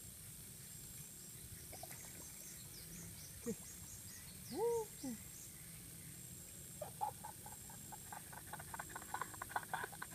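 A frog calling: a short falling note, then a louder rising-and-falling one, with faint bird chirps above. From about seven seconds in comes a rapid run of small clicks as a spinning fishing reel is cranked, winding in a small fish.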